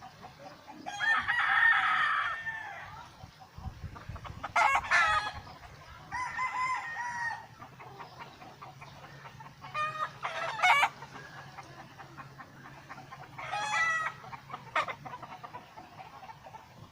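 Birds calling loudly several times: one long call about a second in, then shorter calls spaced a few seconds apart.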